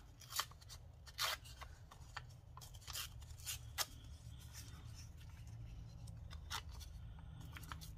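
Small scraps of dictionary paper handled by hand: scattered short paper crinkles and rustles, the sharpest in the first four seconds, over a low steady hum.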